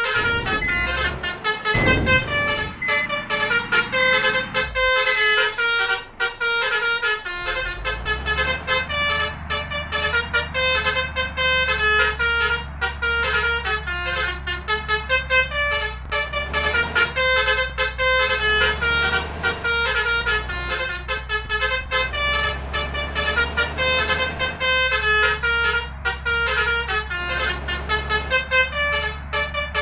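Basuri 'telolet' multi-trumpet air horns playing a fast tune of short stepping notes without a break. A steady low engine hum runs underneath for most of it.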